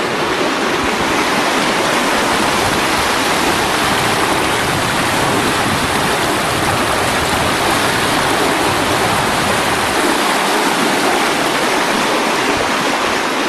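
Steady rushing of wind and water around a catamaran under sail in about 13 knots of wind, an even hiss with no engine note.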